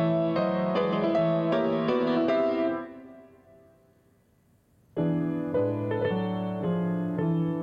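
Grand piano playing quick repeated chords that stop about three seconds in and ring away into a near-silent pause, then playing resumes suddenly about five seconds in.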